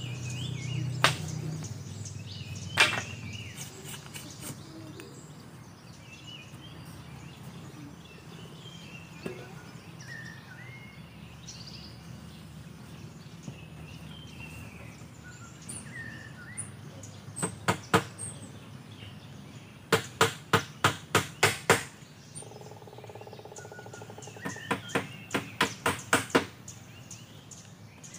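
Bamboo being struck hard by hand tools, in short runs of sharp knocks at about three a second, while a bamboo frame is put together. Forest birds chirp softly throughout.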